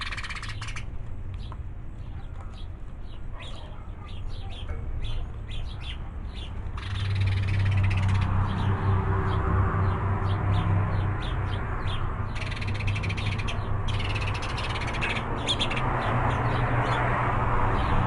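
Small birds calling with many short repeated calls around hanging bird feeders. A car passes on the street about seven seconds in and another near the end, each swelling into a steady low hum and tyre noise that is the loudest sound.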